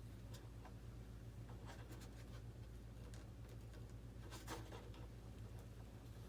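Straight razor blade cutting into the foam exhaust cone of a model jet: faint, scattered scratching and creaking strokes, with one louder scrape about four and a half seconds in. A steady low hum runs underneath.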